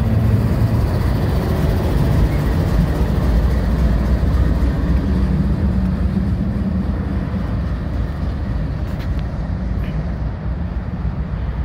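Freight train passing close by: its rear distributed-power diesel locomotive goes past with a steady engine hum under the noise of rolling wheels, and the noise eases slightly toward the end as the last of the train goes by.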